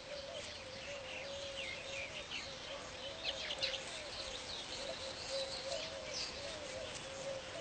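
Weaver birds chirping and chattering at their nests: many short, quick chirps overlapping throughout.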